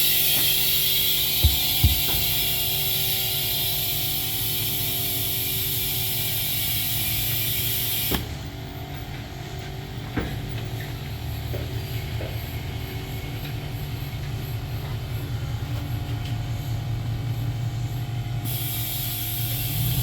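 Tractor engine running steadily, with a hiss over it that stops suddenly about eight seconds in, and two sharp clicks near the start.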